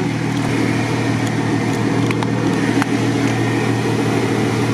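Jeep Wrangler engine idling steadily, with a few faint clicks as a winch hook is unhooked.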